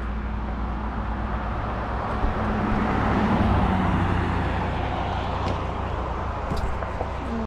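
Highway traffic: a pickup truck drives past, its tyre and engine noise swelling to a peak about halfway through and then fading, over a steady low hum.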